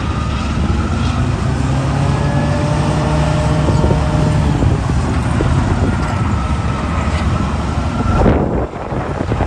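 JCB earthmover's diesel engine running steadily, with a faint high whine above the engine drone. Near the end comes a loud rushing, clattering burst, and then the engine noise drops.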